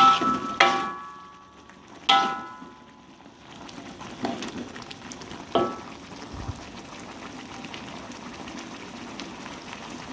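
A metal spatula strikes a frying pan about five times, each clank ringing briefly, over the sizzle of spiced fish frying. The clanks stop after about six seconds, leaving a steady sizzle.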